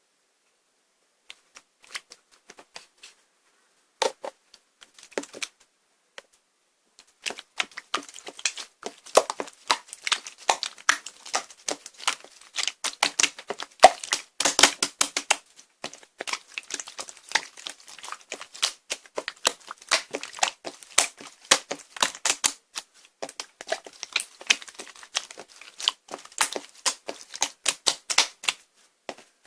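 Slime being squeezed, stretched and poked by hand, giving off rapid crisp clicks and pops. A few scattered clicks come first, then about seven seconds in they turn dense and continuous.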